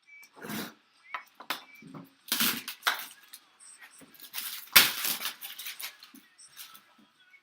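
Cardboard box and packing paper being handled and opened: irregular scraping and rustling, with one sharp, loud crack about five seconds in.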